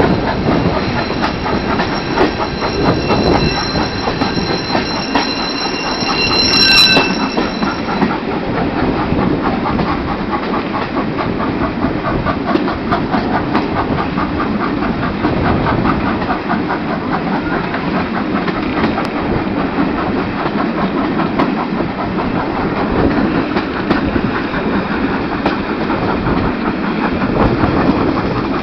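A steam-hauled train's coaches rolling along, heard from an open carriage window, with wheels running on the rails. A high wheel squeal sounds for the first several seconds and peaks with a sharp crack about seven seconds in. After that comes a fast, even rhythmic clatter.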